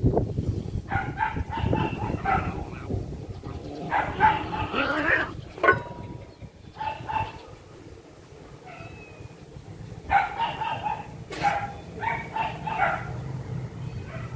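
Orange domestic cat meowing over and over in several groups of short calls, begging to be fed. Two sharp clicks stand out, about six and eleven seconds in.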